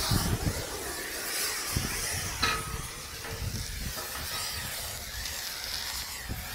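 Arc welding: the electrode crackling and sizzling as it welds a steel rod onto a steel pipe, with a sharp click about two and a half seconds in.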